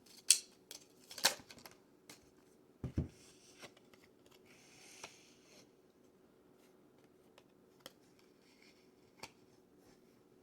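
Tarot cards being handled on a table: a couple of sharp card snaps, a low thump about three seconds in, soft sliding of cards, then only a few light taps.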